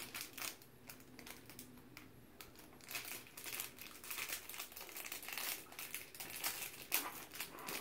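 Small wrapper crinkling as it is picked open and unwrapped by hand, in irregular rustles: sparse at first, then busier from about three seconds in.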